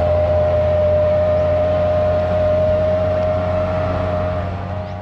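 Diesel engine of an Isuzu DECA 320 sugarcane truck pulling a loaded truck-and-trailer up a hill at steady revs, with a steady low hum and a steady higher tone. It eases slightly near the end.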